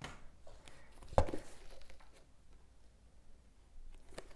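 Quiet handling of a cardboard shipping box and paperback books, with one sharp knock about a second in and a few faint clicks.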